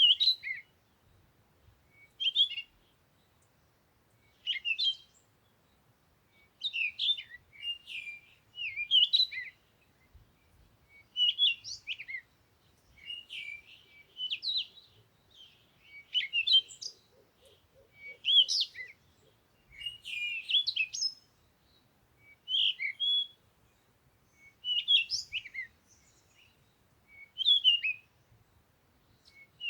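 A songbird singing short, quick phrases of chirps and warbles, repeated every second or two with brief pauses between them. A faint low pulsing trill comes in briefly about halfway through.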